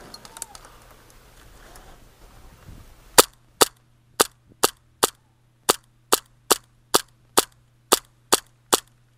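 Tokyo Marui Hi-Capa gas blowback airsoft pistol firing a steady string of single shots, about two a second, starting about three seconds in.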